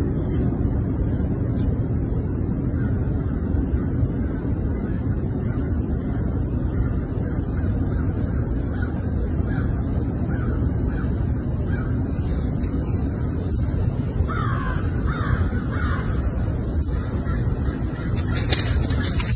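Steady low rumbling outdoor background noise, with a few short animal calls partway through, in a faint run and then a clearer run of three or four.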